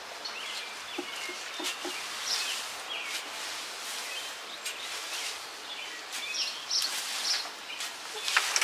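Outdoor ambience with birds chirping now and then over a steady background hiss, and a few light clicks and knocks.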